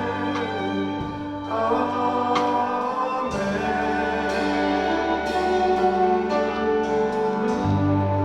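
Worship music with singing and a choir over sustained instrumental chords and a held bass line.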